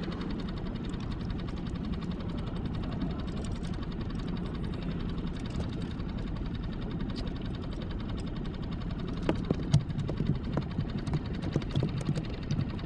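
Small outboard motor idling steadily with a fine, even pulse. From about nine seconds in, several sharp knocks and taps ride over it.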